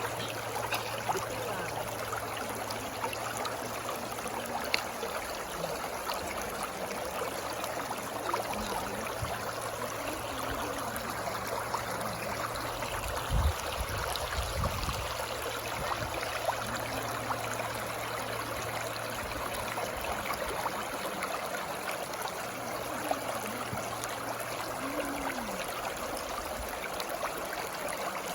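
Water flowing steadily, a continuous rushing with small gurgles and bubbles, and a brief low thump about halfway through.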